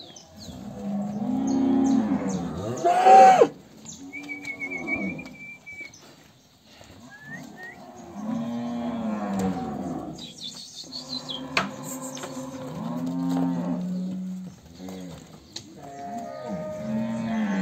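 Cattle mooing over and over, long calls following one another and overlapping, with the loudest bawl about three seconds in.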